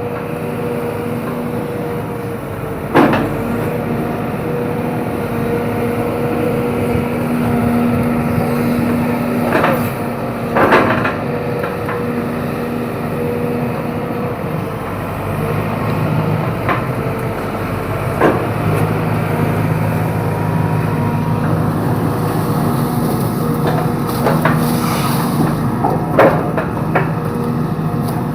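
Hydraulic excavator's diesel engine running under load, its note shifting lower about halfway through, with several sharp cracks and knocks as it works, the loudest about three and eleven seconds in.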